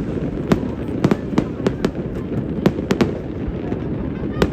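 Fireworks display going off: an irregular run of sharp bangs and cracks, several a second at times, over a continuous low rumble.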